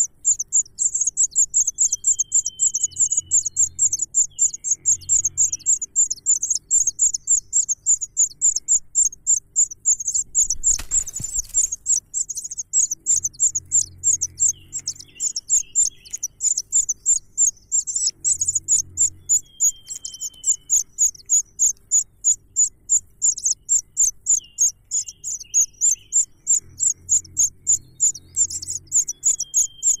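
Nestlings begging with a thin, high-pitched chirp repeated several times a second without pause. A single brief flutter about eleven seconds in, as of wings at the nest.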